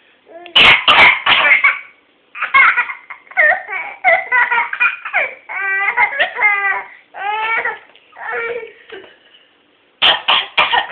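Baby laughing hard at his mother's coughing: repeated high-pitched bursts of laughter and squeals, some close to crying. A loud, harsh burst comes about half a second in and another near the end.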